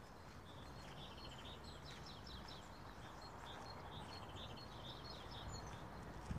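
Faint birdsong: a small songbird singing runs of short, quickly repeated chirping notes, over a low, steady outdoor background rumble.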